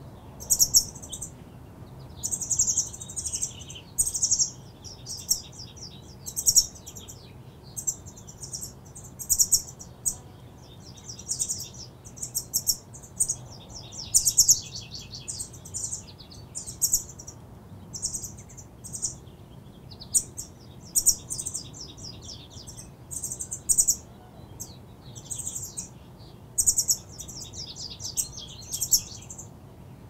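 Small songbirds chirping: short bursts of rapid, high-pitched twittering notes, one every second or two, over a faint low background hum.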